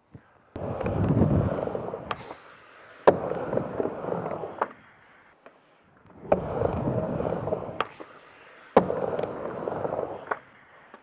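Skateboard wheels rolling on a half-pipe ramp, coming and going in four runs of a second or two each as the board crosses the ramp, with two sharp clacks about six seconds apart.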